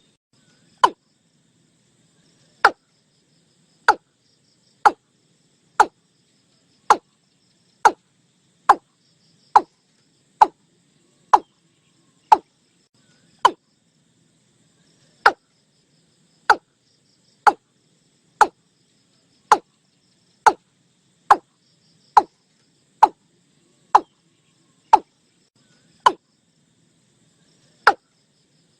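Watercock calling: a series of short knocking notes, about one a second, with a few longer pauses. A faint high buzz of insects runs underneath.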